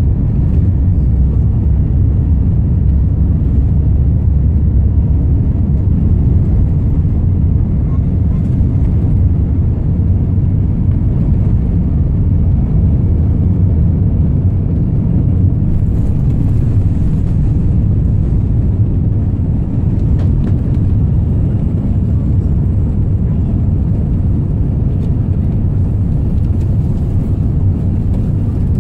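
Jet airliner taking off, heard from inside the passenger cabin: a loud, steady low rumble of the engines at takeoff thrust and the run along the runway, carrying on unchanged through lift-off.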